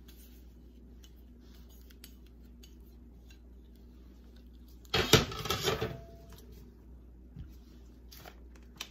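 A small dressing bowl set down hard on the counter about five seconds in, one loud clatter of dishware lasting about a second with a short ring after it.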